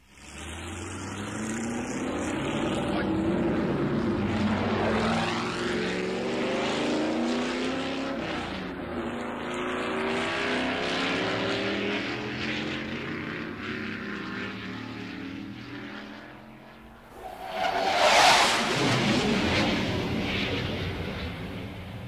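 Recording of motor vehicles passing, their engine notes rising and falling in pitch and overlapping one another, then a louder rushing pass about seventeen seconds in.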